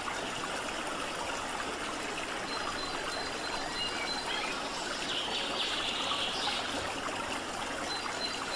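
Steady rushing background noise like running water, with a faint thin high tone that comes and goes twice.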